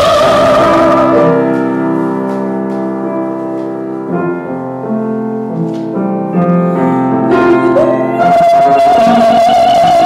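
A female classical singer holds a note with vibrato over piano accompaniment and breaks off about a second in. The piano plays a short interlude alone, and near the end the voice comes back on a long, high held note with vibrato.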